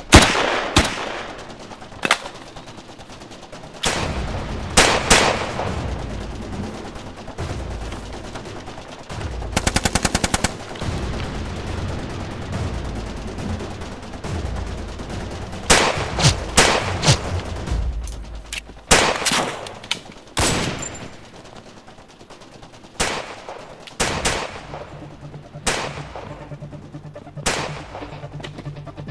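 Gunfight: single gunshots with long echoing tails, fired every second or two with short gaps, and one rapid automatic burst about ten seconds in.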